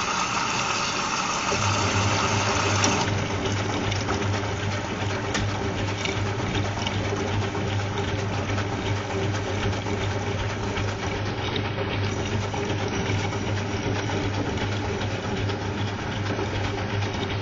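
Whirlpool washing machine on its third rinse: water rushing in, with the motor starting a steady low hum about a second and a half in. The rush of water drops away about three seconds in, leaving the motor's hum over the sound of water in the drum.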